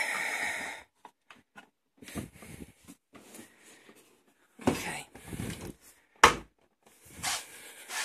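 Dishwasher being shut by hand: small clicks as the detergent-dispenser lid is closed, a rumbling movement of the door, then one sharp clunk about six seconds in as the door latches shut.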